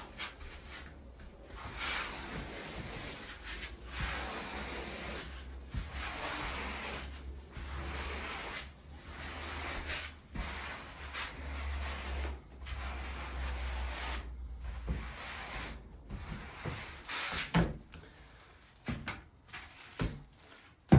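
Rubber grout float scraping wet grout across porcelain floor tile, a rough rubbing sound in repeated strokes about every two seconds as the grout is worked into the joints and the excess is scooped off.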